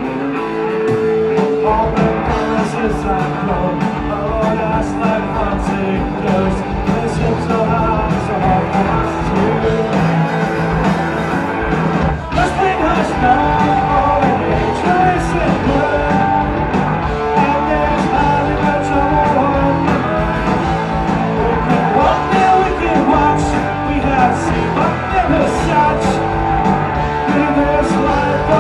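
Rock and roll band playing live: electric guitars, bass guitar and a drum kit, with a man singing into a microphone.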